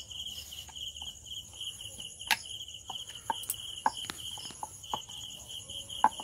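A wooden rolling pin works dough on a rolling board, making scattered light clicks and knocks, the loudest about two seconds in. Crickets chirp steadily behind it in a fast, even, pulsing trill.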